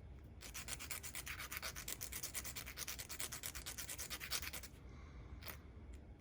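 Small plastic model part being sanded with quick, even back-and-forth strokes for about four seconds, cleaning off leftover support plastic; a single light tick follows near the end.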